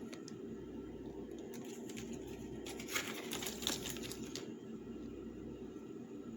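Light plastic clicks and rattles of a hard-shell suitcase being handled, with a busy run of them about three to four seconds in, over a steady low hum.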